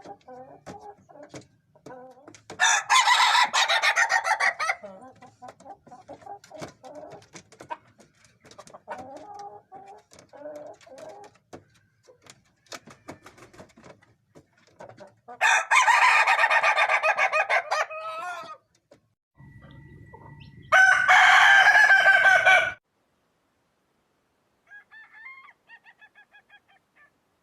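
Roosters crowing: three loud, drawn-out crows, about 3 s in, about 16 s in and about 21 s in, with softer clucking calls between them.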